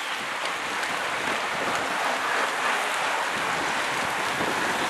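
A bunch of road racing bicycles sweeping past close by: a steady hiss of tyres on tarmac that grows a little louder as the riders near.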